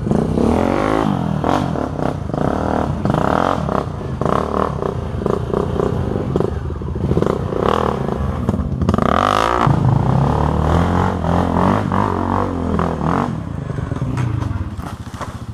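Off-road dirt bike engine revving up and down in uneven bursts as the bike is worked up a steep, rutted trail, with rattling and clatter of the bike, and a hard surge of revs about nine seconds in.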